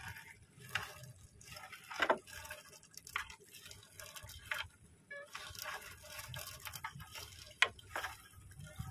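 Seawater dripping and splattering in irregular spatters from a wet fishing net being hauled in by hand, with a few short sharp knocks.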